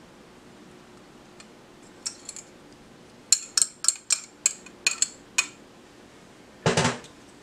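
Sharp clinks of a kitchen utensil against a mixing dish: a couple of light taps, then a quick run of about eight clinks, then a louder knock near the end, over a faint steady hum.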